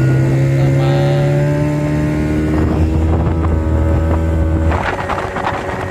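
Speedboat engine accelerating away, its pitch climbing steadily. Nearly five seconds in the engine note drops back and splashing and wind on the hull take over.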